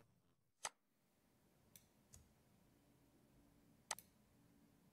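Computer mouse clicks over near silence: two sharp clicks, about half a second in and about four seconds in, with two fainter clicks between them.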